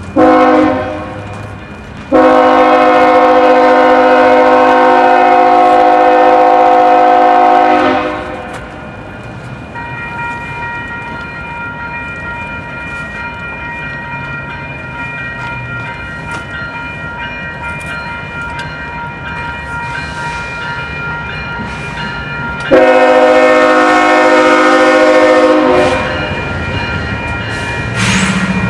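Locomotive air horn sounding a chord of several tones: a short blast, then a long blast of about six seconds, and after a long gap another blast of about three seconds. Between the blasts the train runs steadily, with faint steady tones over the noise.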